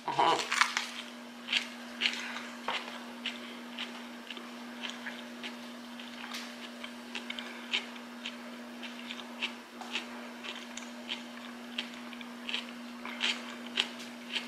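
A person biting into a sandwich and chewing it close to the microphone: a louder bite at the start, then soft mouth clicks and smacks about one or two a second. A steady low hum runs underneath.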